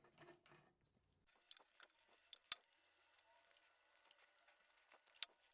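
Near silence with a few faint, sharp clicks, the clearest two about two and a half seconds and five seconds in.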